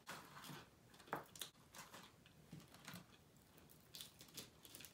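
Faint eating sounds: quiet chewing with scattered soft clicks and crinkles of fast-food paper packaging as food is picked out of it.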